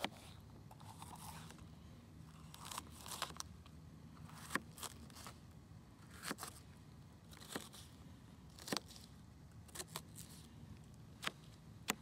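Kitchen knife dicing a red bell pepper on a plastic cutting board: irregular sharp taps of the blade on the board, roughly one a second, some in quick pairs.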